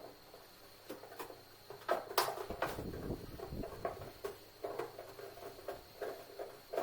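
Irregular clicks, taps and knocks of tools and hands working on washing-machine parts during disassembly, with a louder scraping rumble from about two seconds in.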